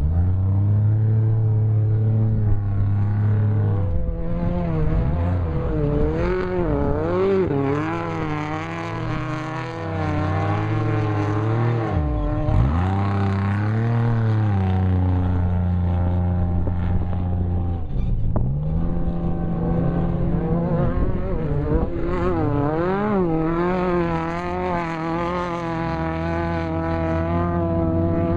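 Off-road race vehicle's engine running hard, its pitch rising and falling rapidly over and over, with three sharp drops in revs that quickly come back up.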